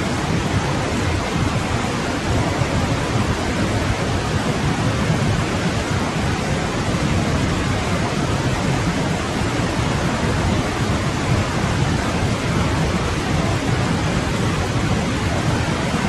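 A forest stream flowing: a steady rush of running water, fullest in the low range, with no change.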